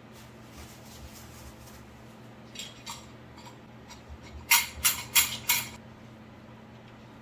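Metal hand tools clinking on metal during bushing work: a few light taps, then four sharp clinks in quick succession about halfway through, over a steady low hum.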